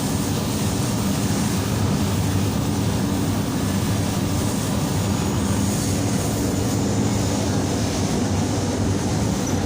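A steady, low rumble of a running motor, with no change in level.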